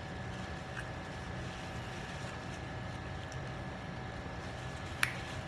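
Steady low background hum with two faint constant tones above it, a few faint small clicks, and one sharp click about five seconds in.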